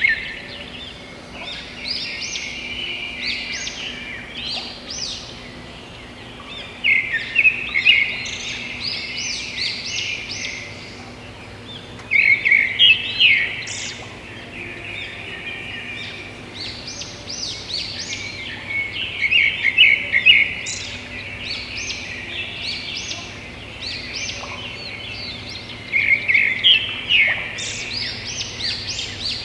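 Small birds chirping and twittering, the quick high chirps bunching into louder bursts every several seconds, over a faint steady low hum.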